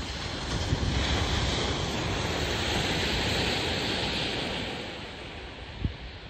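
Steady rushing noise of wind and surf on an open shoreline, with low rumbling gusts on the microphone, swelling for a few seconds in the middle.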